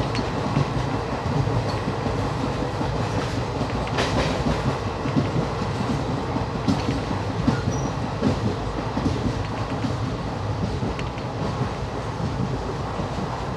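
Train running along the track, heard from on board: a steady rumble of wheels on rail with a few sharp clicks.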